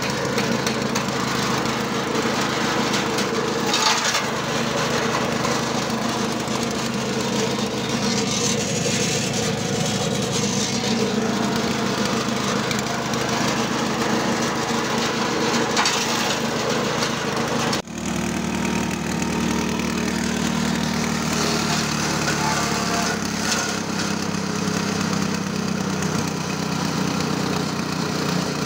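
Small petrol engine running steadily, driving a belt-driven grass chopper whose blades crackle as grass and stalks are fed in. About two-thirds of the way through the sound breaks off for an instant and resumes with the engine at a slightly different pitch.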